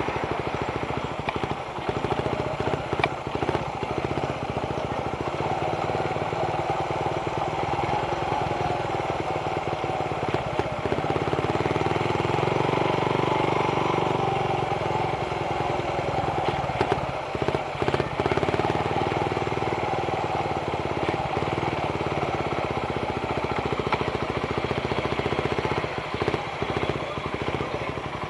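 Suzuki Raider 150 carb motorcycle's single-cylinder four-stroke engine running steadily while riding, its note swelling a little about midway.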